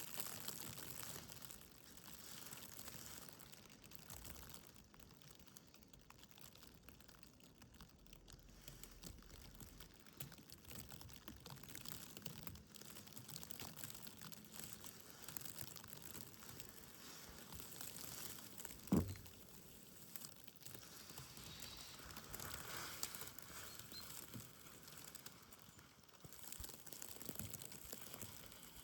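Faint snowy outdoor ambience: a soft, crackly patter with fine clicks, and one short, dull thump about two-thirds of the way through.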